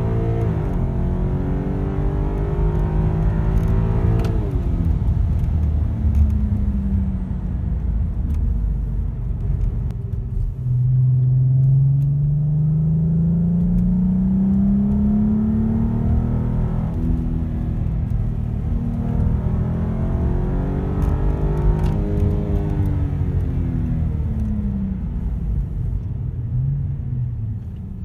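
VW Passat R36's 3.6-litre VR6 engine heard from inside the cabin with the windows up, through an exhaust with the resonator removed and replaced by a straight pipe. The engine note climbs with the revs under acceleration, drops at each gear change, and falls away near the end as the car slows.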